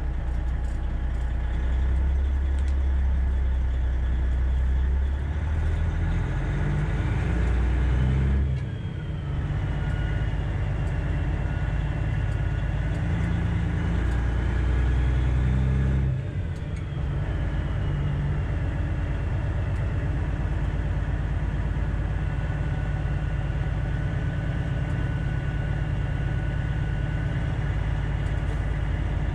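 Freightliner Classic XL diesel running through straight pipes as the truck pulls. The engine note climbs, drops away briefly twice at what sound like gear changes about a third and halfway through, then settles into a steady drone.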